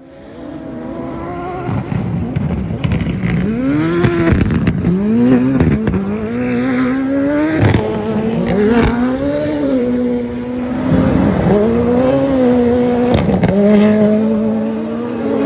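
Turbocharged 939 cc Ford engine of a Buggy 1600 autocross car revving hard, its pitch climbing and dropping sharply again and again as it shifts or lifts, with sharp cracks at several of the drops.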